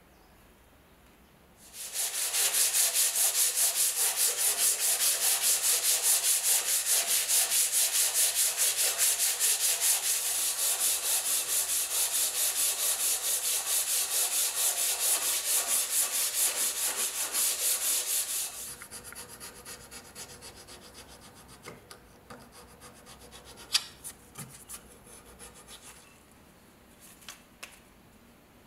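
A wooden block scrubbed rapidly back and forth along a steel knife blade coated in white paste, in fast even strokes, stopping about two-thirds of the way through. After that come quieter scrapes and a few sharp ticks.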